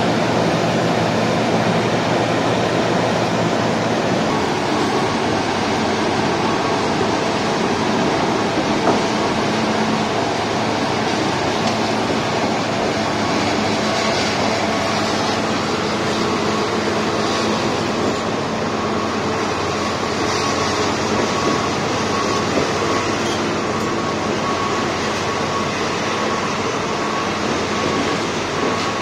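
Terex RH340B hydraulic mining shovel running: the loud, steady noise of its power units and hydraulics, with a thin steady whine in it.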